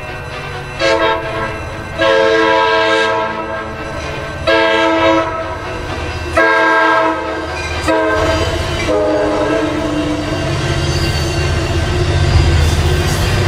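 Locomotive multi-chime air horn sounding a series of blasts: a short one, a long one, then several shorter ones. Under them is the low rumble of the train, which grows louder near the end.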